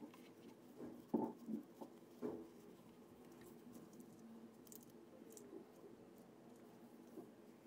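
Faint handling sounds: a few soft taps and rustles about one and two seconds in, as a small doll and its packaging or clothes are handled, over a low steady hum.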